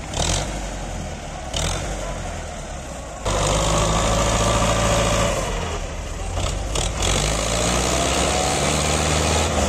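Belarus 510 tractor's diesel engine labouring as it pulls a heavily loaded sugarcane trailer, growing suddenly louder about three seconds in and staying loud. A few short knocks sound along the way.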